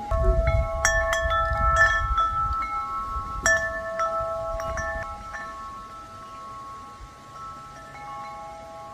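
Wind chimes ringing: several tuned tones struck in quick clusters for the first five seconds or so, then ringing on and slowly fading. A low rumble sits under the first two seconds.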